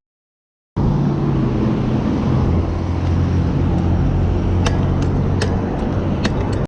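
Steady low rumble of wind and road noise on a camera riding along on a bicycle, with a few sharp clicks in the second half.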